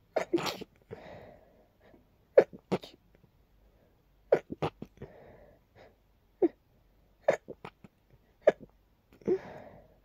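A person's soft sneezes in a rapid fit of short sneezes, one every second or so, some in quick pairs, with breathy gasps in between. The fit is set off by dust.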